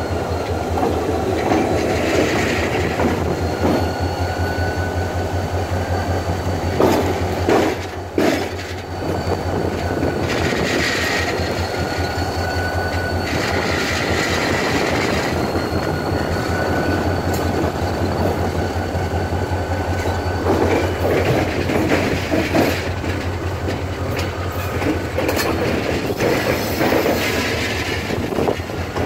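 Diesel locomotive rolling slowly through a yard: a steady low engine drone, wheels clacking over rail joints and points, and thin, high wheel-flange squeals that come and go on the curves. A cluster of heavy clacks comes about a quarter of the way in.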